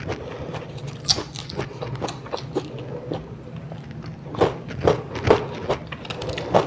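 Crisp raw ambarella (kedondong) fruit being bitten and chewed, with a run of loud, crunchy bites about four to five and a half seconds in, and lighter clicks of a knife cutting into the fruit's flesh.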